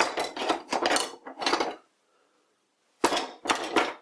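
Steel chisels made from old files clattering and clinking against each other as they are handled, in two bouts: one for nearly two seconds, then another about three seconds in.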